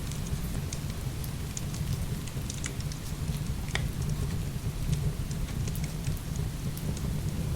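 Heavy rain falling steadily with a deep low rumble, mixed with scattered sharp crackles and pops of burning firewood.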